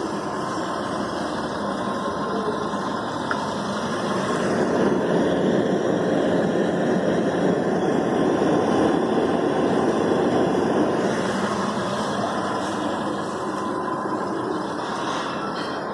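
Steady running hum of a Hyundai i10's petrol engine idling during an HHO carbon clean, with the hydrogen-oxygen gas generator working alongside; it grows louder for several seconds in the middle.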